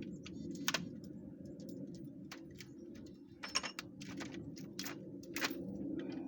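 A handful of sharp, irregular clicks and taps, the loudest about a second in and again around three and a half and five and a half seconds in, over a steady low hum.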